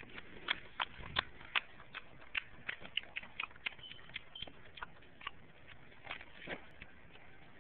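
Five-week-old pit bull puppies play-fighting, making a quick, irregular run of short, high-pitched sounds, several a second, with a brief held high note near the middle.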